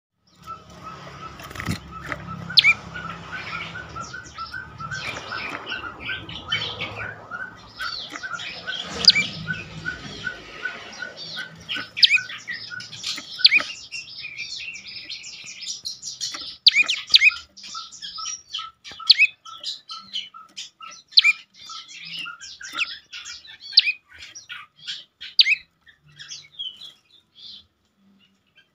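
Prenjak lumut singing: a long, even run of short repeated notes at about four a second, with sharp high chirps over it. The run pauses briefly about halfway through, then resumes. A low hum lies under the first ten seconds.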